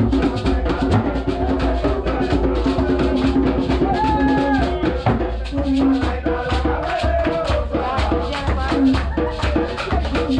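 Live bèlè drumming: a barrel drum played with the hands by a drummer sitting astride it, with a shaker rattling along to a fast, steady beat and a voice singing over it.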